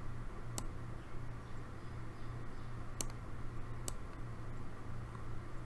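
Computer mouse button clicking three times, spaced apart, over a steady low hum.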